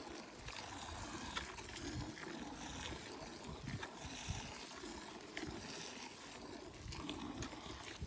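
Faint hand-milking of a cow: thin streams of milk squirting into a metal bucket that already holds milk, over quiet outdoor background hiss.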